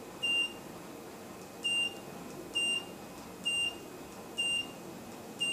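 Handheld FHM2A02 optical multimeter giving six short, high key-press beeps, about a second apart. Each beep confirms a press of the up/down keys while scrolling through stored power readings.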